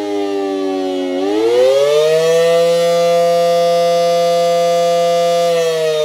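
Federal Signal SD-10 electromechanical outdoor warning siren wailing on the Attack signal. Its tone slides down, rises again about a second in, holds steady for about three seconds, and starts falling near the end.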